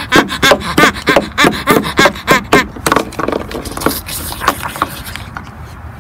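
Small vinyl toy figures knocked and scraped against wooden deck boards: a quick run of taps, about four a second, that turns lighter and sparser after about three seconds.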